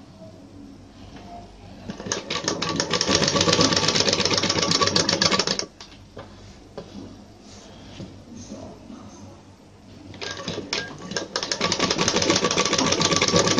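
Sewing machine stitching through layers of blouse fabric in two runs, a rapid even clatter of the needle, the first for about three and a half seconds starting about two seconds in, then a pause before it starts again near the end.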